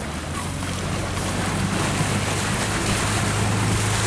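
A motorboat engine running steadily, a low hum that slowly gets a little louder, with wind and water rushing past.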